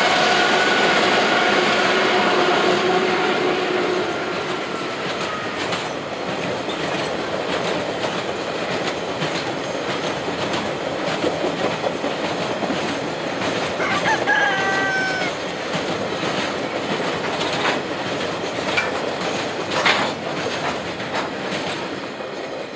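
Two DX-class diesel-electric freight locomotives passing with a steady engine whine that fades within about five seconds, followed by a string of tank wagons rolling by with continuous wheel rumble and clickety-clack over the rail joints. A rooster crows once about two-thirds of the way through, and a sharp clank stands out near the end.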